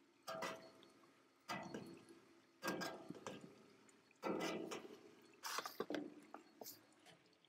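Wet red grape must sliding and splattering down a stainless-steel hopper into a basket press as it is pushed along with a paddle. It comes in five sudden surges, each dying away over about a second.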